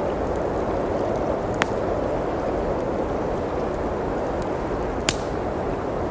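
Steady rushing of blizzard wind with a wood fire crackling, two sharp pops standing out about one and a half seconds and five seconds in.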